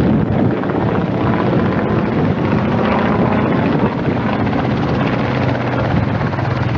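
Propeller-driven piston-engine airplanes running steadily in flight overhead.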